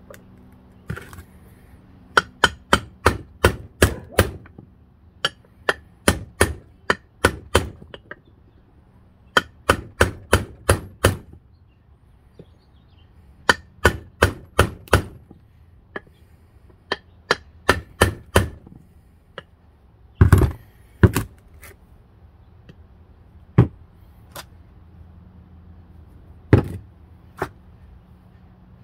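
Hammer tapping a new bearing down into its bore in a scooter transmission case: quick runs of sharp taps, several a second, broken by short pauses, with a few heavier single blows in the second half.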